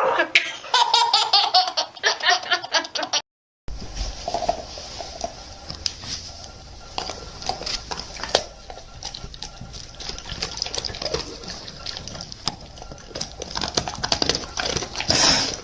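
A baby laughing in quick repeated bursts, cut off about three seconds in. After that come softer background noise and scattered clicks.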